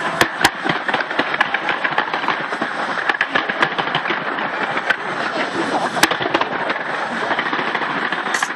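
Fireworks crackling in a dense, continuous run of rapid pops, with a few sharper bangs near the start and about six seconds in.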